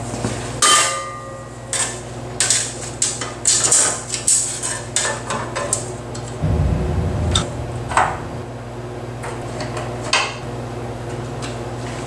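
Sheet-metal access panel of a Lockerbie Willie Wheel potter's wheel clanking and rattling against the steel frame as it is fitted back on by hand. The first clang rings briefly, and irregular knocks follow for about ten seconds.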